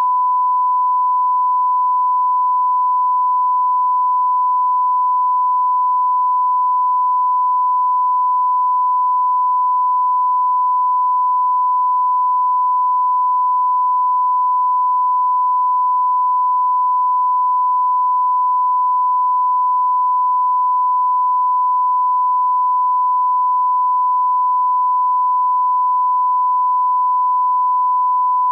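Broadcast line-up test tone of the kind played with colour bars: one steady, unbroken pure tone at a constant pitch.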